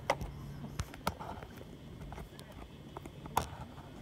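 Footsteps on rock and gravel: a handful of separate hard knocks and crunches, the loudest about three and a half seconds in, over a faint low steady hum that fades out about halfway through.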